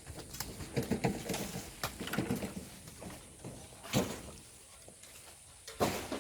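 Irregular knocks and scrapes of hand tools working volcanic sand and stones, with a sharp strike about four seconds in and another near the end.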